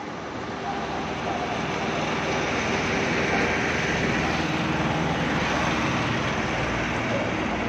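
Road traffic: a passing vehicle's engine and tyre noise, a steady rushing that builds over the first couple of seconds and then holds.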